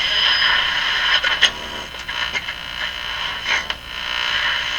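Admiral Y846 five-tube AM radio hissing with static through its small speaker, with a few sharp crackles.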